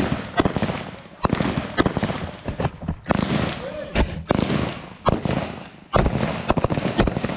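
Rifle fire from several M4-type carbines on a range: sharp shots at an uneven pace of about two or three a second, each followed by a long echo.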